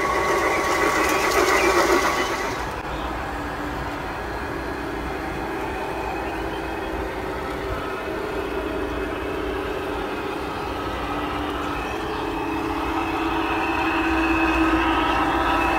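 G-scale model diesel locomotive hauling a train of ore hopper cars along garden track: a steady running sound with several held tones, louder for the first couple of seconds and again near the end.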